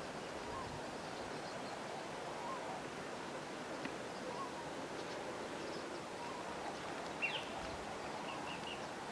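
Birds calling over a steady soft hiss. One call repeats every second or so, a single sharper chirp comes about seven seconds in, and three quick high notes follow.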